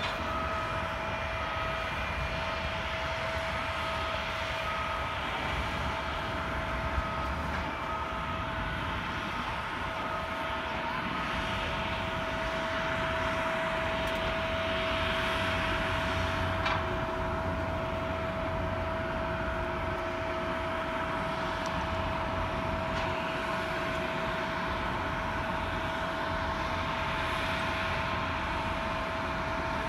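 Jet airliner sound at an airport: a steady tone over a rushing hiss that swells about halfway through, with a faint beep repeating about once a second over the first several seconds.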